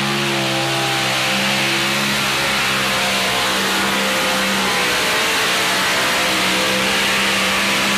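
Multi-engine modified pulling tractor running flat out under load as it drags a weight-transfer sled, a loud, steady engine drone held at one high pitch.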